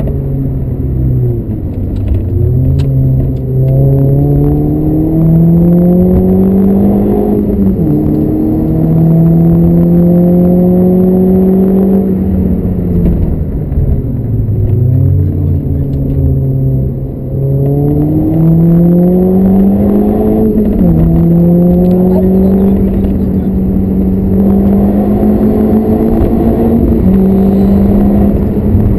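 VW Lupo's engine under hard acceleration on track, climbing in revs, dropping back sharply at each upshift, and falling away when slowing for corners before pulling up again.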